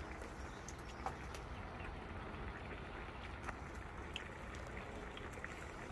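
Braised mackerel and radish simmering in a wide cast-iron pan, its thick reduced sauce bubbling steadily, with a few light clicks of a metal spoon in the pan.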